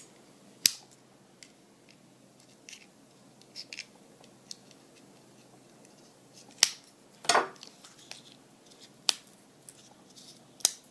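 A knife blade cutting and prying at the plastic fastening on the underside of a die-cast toy car: a few sharp snaps and clicks spread through, with faint small ticks between them.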